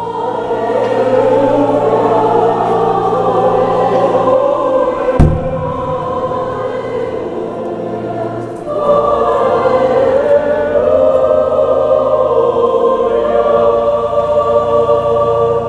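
Choir and congregation singing a slow sacred hymn over steady held low tones. A single sharp knock sounds about five seconds in, and a new, louder phrase begins about nine seconds in.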